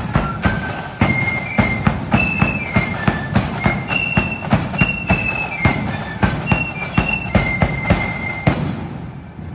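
Marching flute band playing: a high flute melody of held, stepping notes over a steady beat of sharp drum strikes. The tune stops about eight and a half seconds in.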